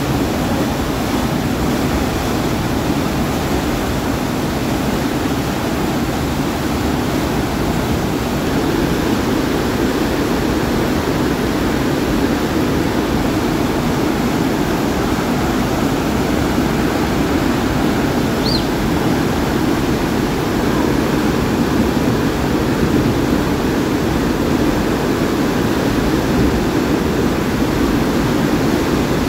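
Muddy floodwater from a flash flood (huayco) rushing down a concrete channel, a loud, steady rush of water.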